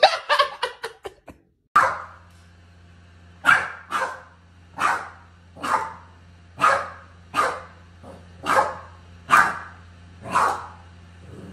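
Boston terrier barking repeatedly, about one bark a second, at a life-size inflatable Boston terrier decoration, over a steady low hum. A quick run of short sharp sounds comes before it in the first second and a half.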